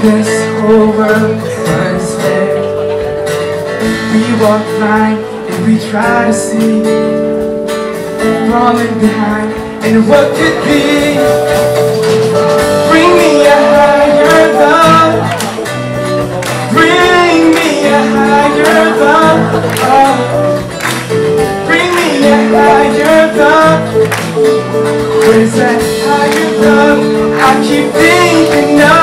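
Male vocalist singing into a handheld microphone over a live band with drums and sustained chords; the voice comes through more strongly from about ten seconds in.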